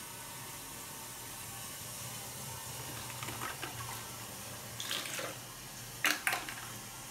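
Toilet water running steadily into the bowl as it refills, with a few short splashes and knocks of plastic eggs as a hand stirs them in the water, the loudest about six seconds in.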